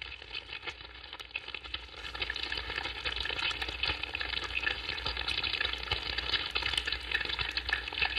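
Dense, fine crackling rustle of a mass of army ants crawling over one another in their living bivouac, like frying, growing louder about two seconds in.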